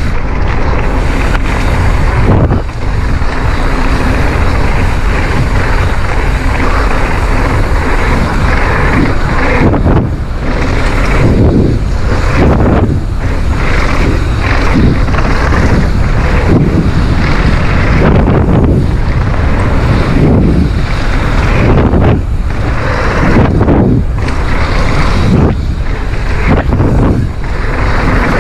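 Wind rushing over the microphone of a GoPro on a mountain bike running down a dirt bike-park trail, mixed with tyre roar and frequent short knocks and rattles as the bike hits bumps.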